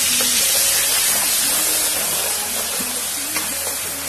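Onion sizzling and frothing in hot oil in a karahi with fenugreek seeds: a loud, dense frying hiss that eases slightly toward the end.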